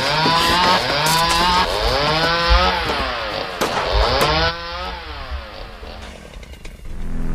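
Two-stroke chainsaw revving up and down over and over, its pitch rising and falling about once a second; it fades away in the last couple of seconds.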